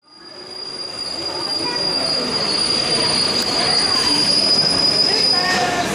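Metro train arriving through the tunnel, its running rumble building up over the first couple of seconds, with a steady high-pitched squeal held over it.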